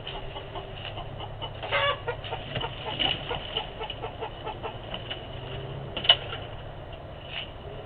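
A hen clucking: a quick run of short, evenly spaced clucks from about two seconds in, then one sharp, louder call about six seconds in.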